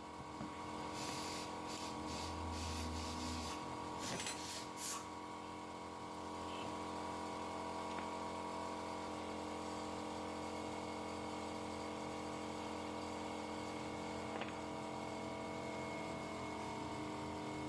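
A few short clicks and scrapes of hand tools in the first five seconds, as the screws holding the idle air control valve plate on a throttle body are worked loose, over a steady hum.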